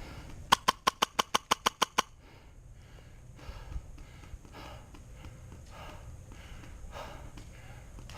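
Airsoft gun firing a rapid full-auto burst of about eleven shots, roughly seven a second, that stops about two seconds in. Faint breathing follows.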